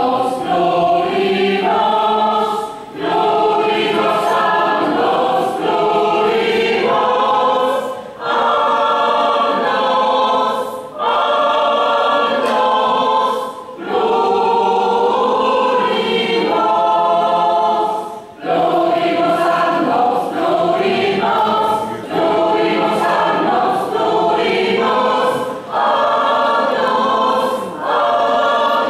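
Choir singing a hymn, in phrases of a few seconds with short breaks between them.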